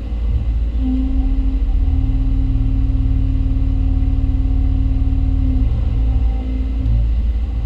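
Hyundai Robex 220-9A LC excavator's diesel engine running under hydraulic load, heard from inside the cab: a steady low drone with a hum that comes in about a second in and eases off near the end.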